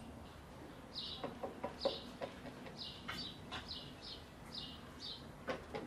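A bird chirping repeatedly in a steady series of short, high, falling chirps, more than one a second. A few light knocks and clatters sound about a second or two in.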